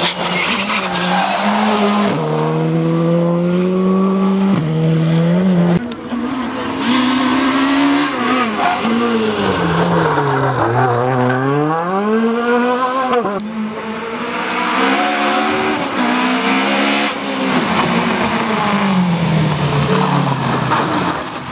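Rally car engines at full effort on a stage, the engine note stepping up through gear changes and dipping low and climbing again as the car brakes for a corner and accelerates out. The sound changes abruptly about six and thirteen seconds in as one pass gives way to the next.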